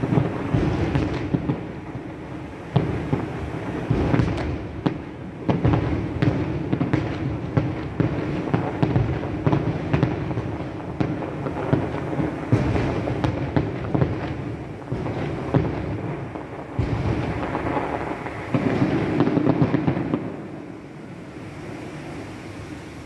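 Fireworks display: many rapid, overlapping bangs and crackles over a continuous low rumble, dying down near the end.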